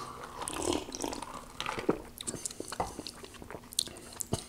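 A sip of iced lemon-lime soda from a plastic cup, followed by many small wet mouth sounds and lip smacks as it is tasted. There is a light knock near the end as the cup is set back down on the table.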